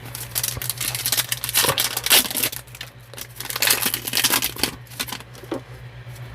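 A foil trading-card pack crinkling and rustling as it is torn open and its cards are handled, in a run of irregular crackles over a steady low hum.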